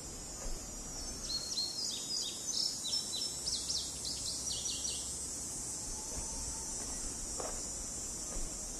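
Summer outdoor ambience: cicadas drone steadily at a high pitch, and a small bird chirps a quick run of short notes from about one second to five seconds in.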